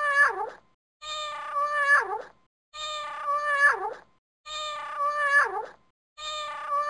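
A cat's meow played over and over at even intervals, about every second and three-quarters. Each call is an identical copy, held and then dropping in pitch at its end: a looped meow.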